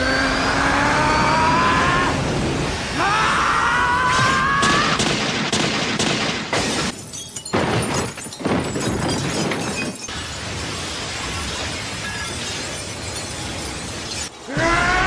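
Anime fight sound effects: two long rising shouts in the first five seconds, then a run of sharp cracks and crashes and a steady rushing noise as ice shatters and flies apart.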